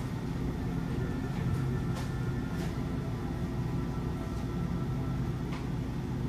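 Steady low hum and rumble of convenience-store background noise, with a few faint clicks and taps.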